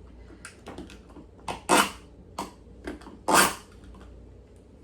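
Plastic zip-top freezer bags of marinating chicken being handled, giving several short crinkling rustles, the loudest about two and three and a half seconds in.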